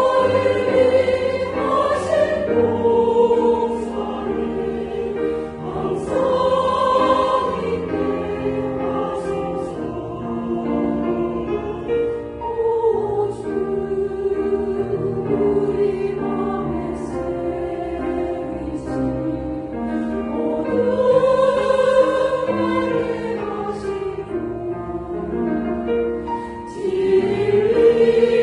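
Church choir singing a hymn anthem in several parts, in long sustained phrases that swell louder and ease off.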